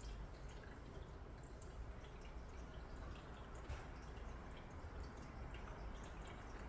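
A cat lapping water, heard as faint, irregular small wet clicks.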